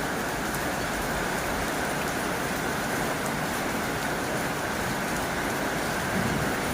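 Heavy rain drumming steadily on a tin roof, an even dense hiss of countless drops. A low rumble begins to build near the end.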